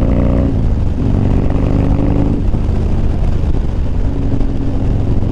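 Harley-Davidson Dyna's V-twin engine running while riding at road speed, with wind rush. The steady engine note drops away about halfway through and comes back near the end.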